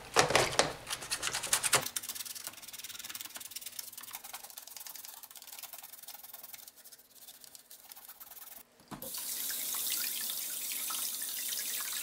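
Toothbrush scrubbing a Bosch dishwasher's fine-mesh filter screen and plastic filter in soapy water, with quick strokes, loud at first and then softer. About nine seconds in, the tap comes on and water runs steadily while the filter is brushed under it.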